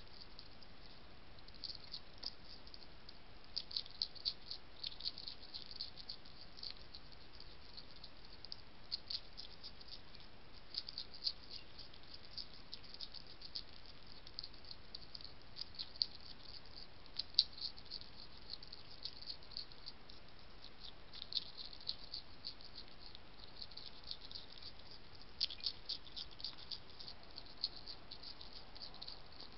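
European hedgehog chewing food at close range: rapid, irregular clusters of sharp clicks and crunches as it eats.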